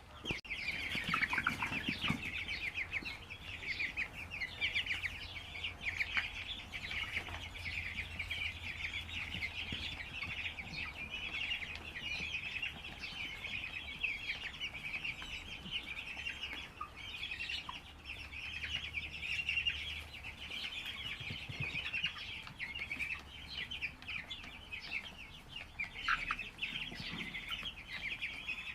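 A flock of broiler chickens in a poultry shed: a dense, continuous chorus of many overlapping high-pitched cheeps and peeps, with a faint low hum underneath.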